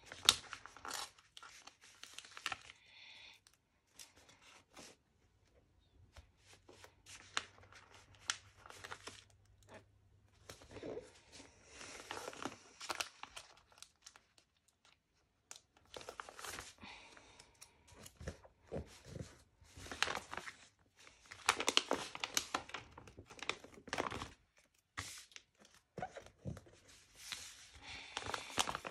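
Paper sticker sheet rustling and crinkling as it is bent, with stickers peeled off its backing and pressed onto a magazine page. The sound comes in irregular bursts with short pauses.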